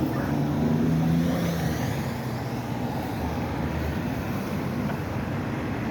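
Street traffic: a car passing close by, its engine hum strongest in the first second or two, over a steady wash of road noise.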